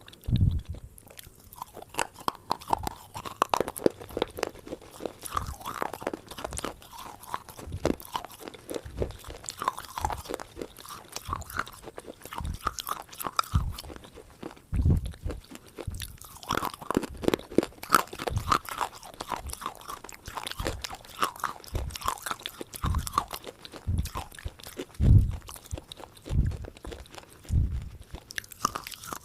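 Someone biting and chewing crunchy food close to the microphone: a dense, continuous run of crisp crackles, with now and then a heavier bite.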